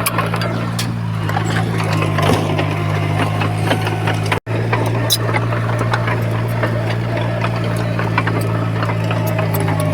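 Heavy diesel earthmoving machinery running with a steady engine drone and scattered clicks and clanks over it. The sound cuts out for an instant about four and a half seconds in.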